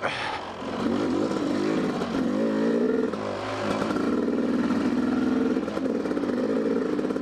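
Dirt bike engine revving up and down on a trail ride. The throttle comes off briefly just after the start, then the revs climb and waver before holding fairly steady through the second half.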